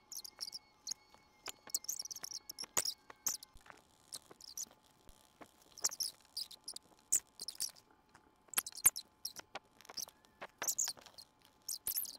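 Pencil strokes scratching on paper, sped up, so they come as quick, short, high-pitched scratches with a few sharp clicks.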